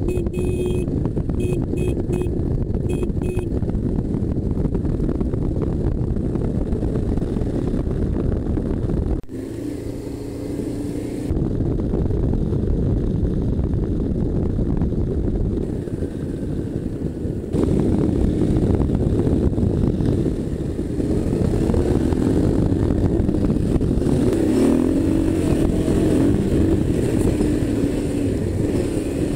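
Honda V-twin dual-sport motorcycle running on the move on gravel and dirt tracks, with wind rushing over the bike and the mount-side microphone. The sound changes abruptly at several cuts between stretches of riding, and near the end the engine note rises and falls with the throttle.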